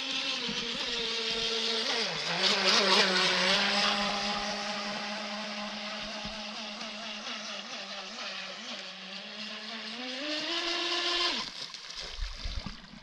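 Radio-controlled speedboat's motor running at speed with a steady, slightly wavering pitch, loudest about two to four seconds in; near the end the pitch rises as it is throttled up, then it cuts off suddenly, leaving a low rumble.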